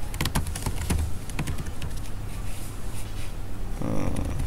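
Computer keyboard typing: quick, irregular key clicks, thickest in the first second, over a steady low hum. A brief rough buzz comes near the end.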